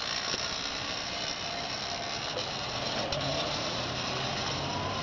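Electric motorcycle (a 1989 Kawasaki Ninja converted with a Mars ME0709 motor) riding away, its motor a faint whine that rises near the end. Under it runs a steady hiss.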